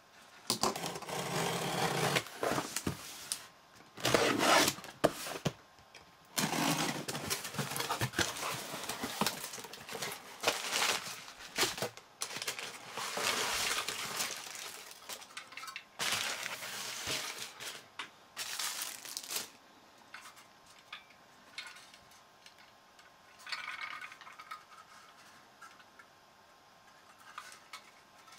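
Crumpled packing paper and a foil antistatic bag rustling and crinkling in repeated bursts as a CPU cooler is unwrapped by hand. The handling turns quieter, with scattered small knocks, in the last third.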